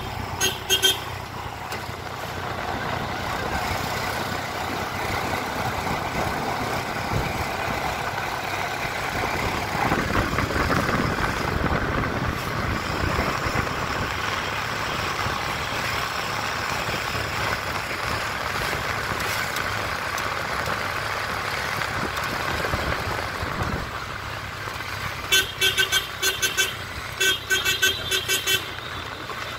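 Road noise from riding in traffic: an engine running with steady rush. A vehicle horn gives a couple of short toots right at the start, and near the end it sounds in a rapid series of short beeps over about three seconds.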